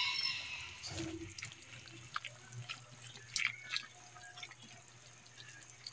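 Pan of chicken and chayote broth simmering with small pops and drips. A metal spoon clicks against the pan several times in the second half as the vegetables are stirred.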